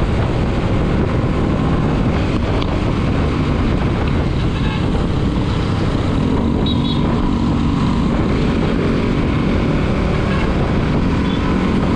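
Motorcycle riding on the road: steady loud wind rush on the microphone over the running engine and tyre noise, with a faint steady engine tone partway through.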